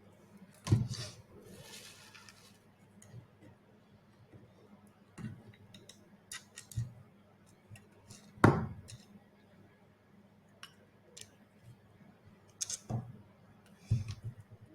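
Scattered clicks and knocks of small hard parts and tools being handled during robot-head assembly. The loudest knocks come about a second in and just past the middle, with a cluster of quicker clicks near the end.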